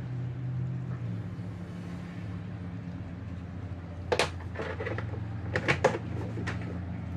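A steady low hum with a handful of sharp knocks and clicks about four to six and a half seconds in.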